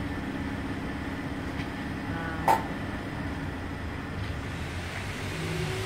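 Steady hum of a car-wash vacuum machine running, with one sharp knock about two and a half seconds in. Near the end a tone rises and then holds.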